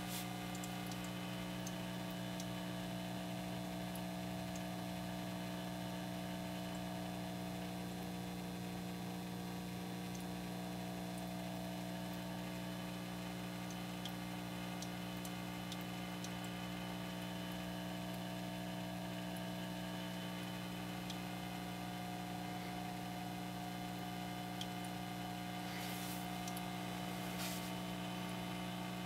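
Steady electrical hum made of several fixed tones over a faint hiss, with two faint clicks near the end.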